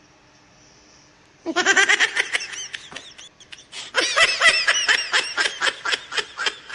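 A person laughing in two long bursts of rapid, high-pitched "ha" pulses, starting about a second and a half in, with a short lull in the middle.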